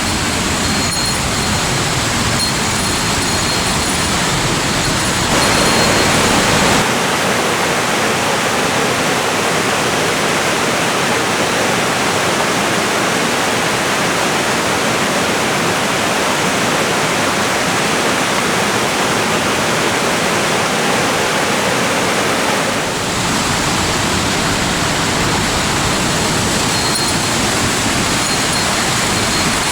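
Steady rushing of water from a mountain waterfall and stream. Its sound changes abruptly about 6 to 7 seconds in, losing its deepest part, and changes back about 23 seconds in.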